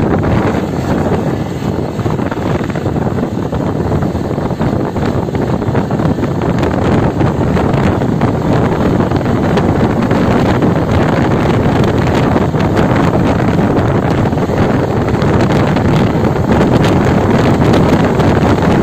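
Wind rushing over the microphone of a rider on a motorcycle at around 60 km/h, loud and steady, with the bike's engine running underneath.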